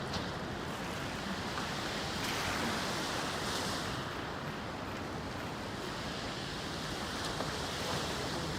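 Steady rushing noise, like wind or surf, with no distinct events.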